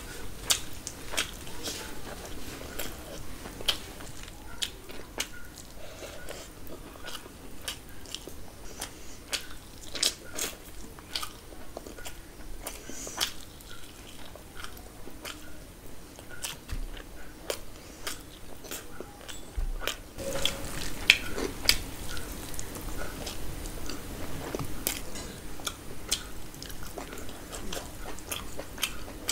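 Close-miked chewing and wet lip-smacking of a person eating biryani by hand, with many sharp mouth clicks, several a second, getting busier about two-thirds of the way through.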